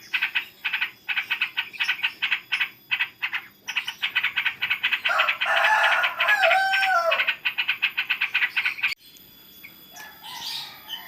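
Yellow-vented bulbul (trucukan) giving a rapid, repeated chattering call, about four or five notes a second, with a louder warbling phrase in the middle. It is the call of a breeding bird that feels threatened near its eggs. The sound cuts off abruptly near the end.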